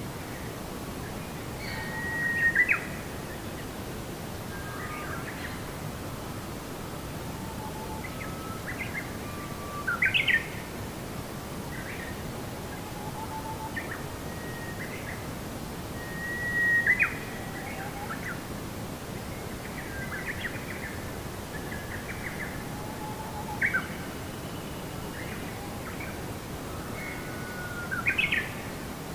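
Birds chirping and calling over a steady background hiss, with a louder short rising call every several seconds.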